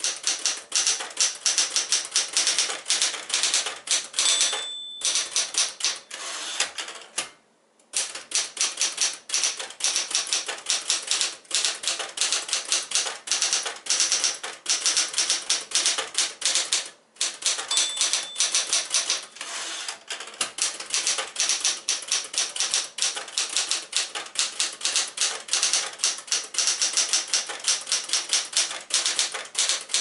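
1967 Smith-Corona Super Sterling manual portable typewriter being typed on: rapid keystrokes clacking against the platen, with a few brief pauses. The margin bell rings twice, about four seconds in and again about eighteen seconds in, signalling the approaching end of a line.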